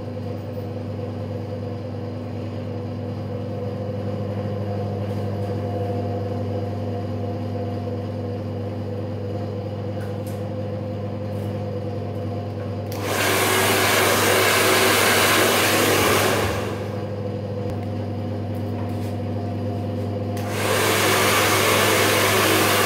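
Handheld hair dryer running with a steady motor hum while a round brush works through the hair. Its rush of air grows much louder twice, for about three seconds from 13 seconds in and again near the end.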